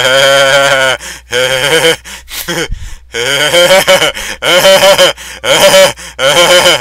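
A man laughing loudly in a drawn-out 'hue hue hue' laugh, in voiced bursts of up to about a second with short breaks between them.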